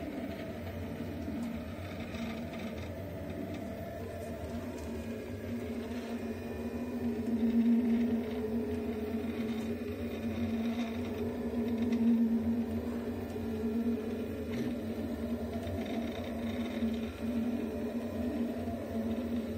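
Delta 3D printer's stepper motors humming and whining as the print head moves around laying down a first layer, with a steady low rumble underneath. The tone shifts with the head's movements and swells louder about eight and twelve seconds in.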